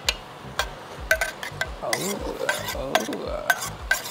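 Steel ladle tapping and scraping against a stainless steel pot as cooked rice is spooned in. The taps are short, sharp and metallic, coming irregularly about two a second.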